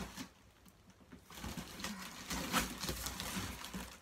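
Cardboard box flaps and packing paper rustling and scraping as a large box is opened by hand, starting after about a second of near quiet.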